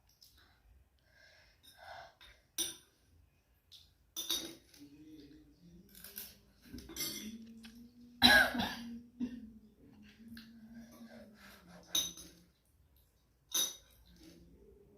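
A person eating very spicy Maggi noodles: scattered clicks of a utensil against a dish, with breathing and coughing from the heat of the chillies. The loudest sound comes a little past the middle, and a low steady hum runs through the middle stretch.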